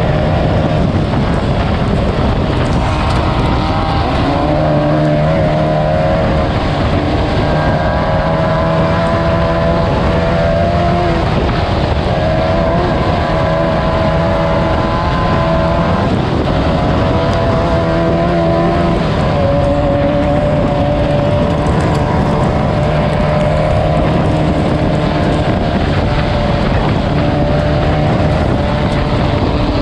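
Class 9 off-road race buggy's air-cooled Volkswagen engine running hard under load, its pitch rising and dipping every few seconds with throttle and gear changes, over a constant rush of noise.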